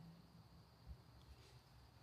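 Near silence: faint outdoor ambience, with one soft low bump about a second in.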